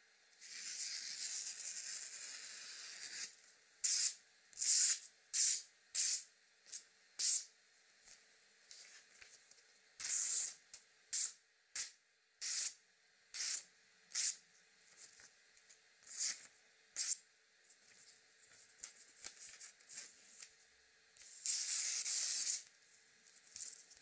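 Knife blade slicing through a glossy magazine page, a test of the edge's sharpness: one long slice of about three seconds, then a run of short quick slices, and another long slice near the end.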